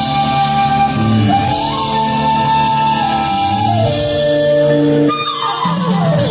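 Live soft-rock band playing an instrumental passage between sung lines, with a lead line holding long notes over the chords and a falling slide in pitch near the end.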